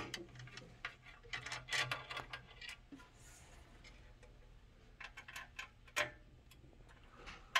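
Scattered small metallic clicks and taps of a 2.5 mm hex driver and screws being worked loose inside a resin 3D printer's metal housing. A sharp click at the start, a run of quicker clicks a little over a second in, and single sharp clicks near six seconds and just before the end.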